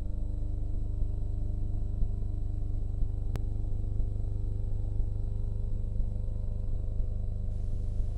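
Engine running at a steady idle, an even low rumble, with a single sharp click a little over three seconds in.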